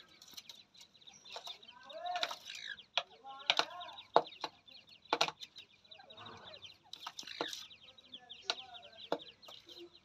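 Gray francolin hen giving short, soft clucking calls to her chicks at the feeding dish, repeated irregularly about a dozen times, with several sharp clicks among them. A continuous high, fine trill runs underneath.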